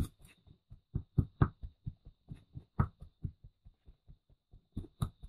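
A tin can chopping down into damp puttu flour dough in a plastic tub, breaking it into small crumbs: a run of irregular dull thuds, about four a second.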